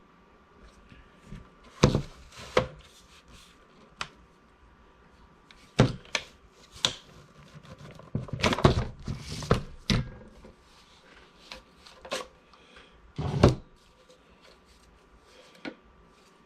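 Hard plastic clicks, knocks and clatter from taking apart and refitting a cordless stick vacuum's dust cup and HEPA filter: scattered sharp knocks, a busier rattling stretch about halfway through and a loud knock near the end.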